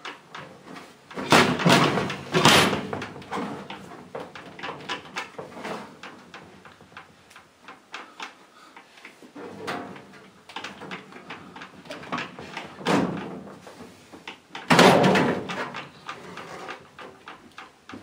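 Sheet-metal outer cover of a Russell Hobbs microwave being slid backwards and lifted off the chassis, metal scraping and clattering against metal. Loud clattering comes about a second in, again near thirteen seconds and near fifteen seconds, with small clicks and knocks in between.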